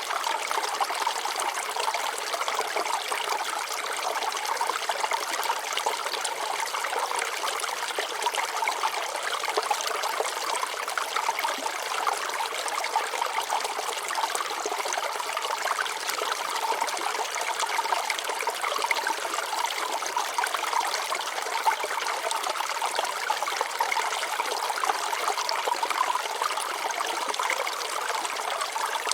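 Shallow water trickling and splashing over rocks in a steady, continuous babble without change.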